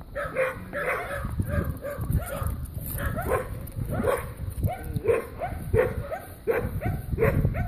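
Dog play vocalizing during a tug-of-war over a ball on a rope: repeated short whiny yips, about two a second.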